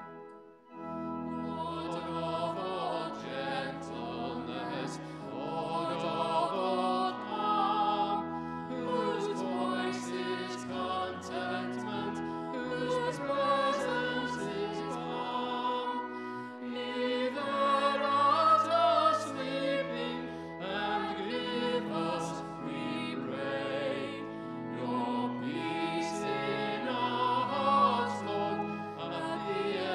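Church congregation singing a hymn with instrumental accompaniment, held chords under many voices; a brief pause about half a second in, then the next phrase or verse begins.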